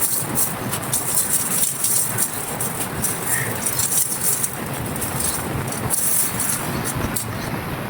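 Dry, crumbly chunks being crushed and crumbled: a dense, continuous crackling of many small cracks and grains.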